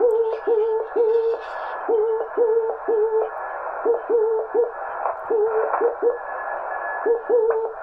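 Morse code from a home-built single-valve CW transmitter heard on a ham radio receiver: dots and dashes on a low tone over steady band hiss. Each element chirps, its pitch bending as it keys on, the 'very chirpy' note typical of a simple keyed valve oscillator.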